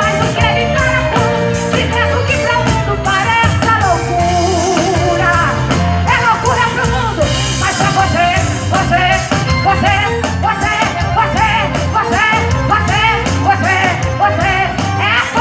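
Live gospel band playing an upbeat song, with a steady drum beat, strong bass and a lead voice singing over it.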